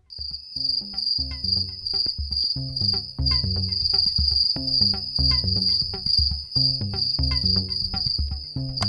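A steady, pulsing high cricket trill over music with a repeating low bass line and sharp clicks.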